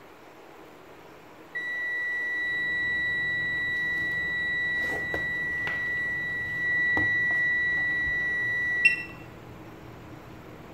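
Digital multimeter's continuity beeper sounding one steady, high-pitched beep for about seven seconds, then cutting off abruptly, with a few light clicks of the test probes being handled. The meter reads near zero, so the probes are shorted together.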